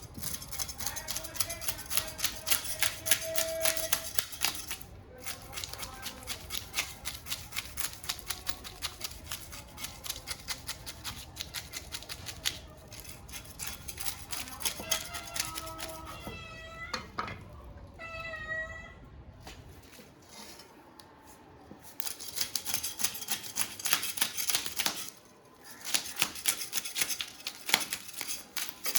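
A knife working on a large hilsa fish: runs of rapid, repeated scraping and clicking strokes, with a short pause about two-thirds of the way in.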